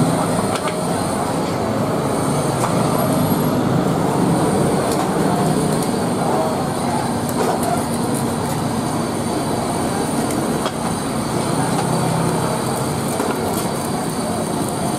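Steady roar of a gas burner under a pan of soup, with a few light clinks of a ladle.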